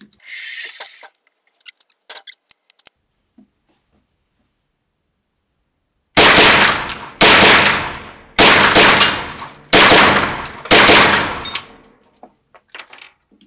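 Kel-Tec SUB2000 semi-automatic carbine firing 9x21 rounds: a string of shots in five quick groups about a second apart, each shot ringing on in the enclosed firing booth. The long trigger reset makes quick follow-up shots awkward.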